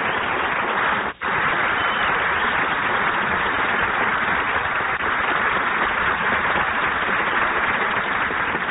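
Studio audience applauding, a steady clatter of clapping with a brief drop-out about a second in.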